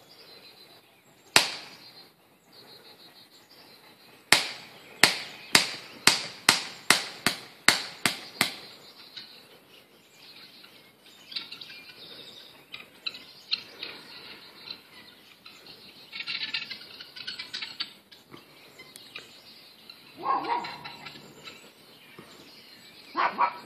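Sharp impacts: one, then a run of about ten at a steady pace, a little over two a second. Bird calls follow.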